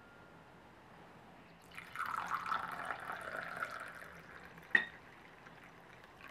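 Tea poured from a china teapot into a china teacup, a splashing trickle of liquid filling the cup for about two and a half seconds, followed by one sharp clink.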